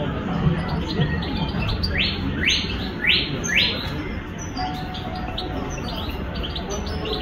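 Song thrush singing: a phrase of four quick rising whistled notes repeated about half a second apart, a couple of seconds in, followed by softer short high notes.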